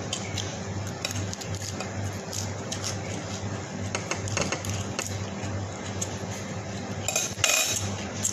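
Metal spoon clinking and scraping against a ceramic rice bowl during a meal, in scattered light clicks, with a louder burst of noise near the end.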